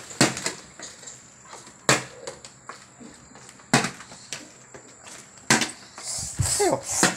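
Plastic water bottle being flipped and landing on a tiled floor again and again, a sharp clack each time, five times at about two-second intervals.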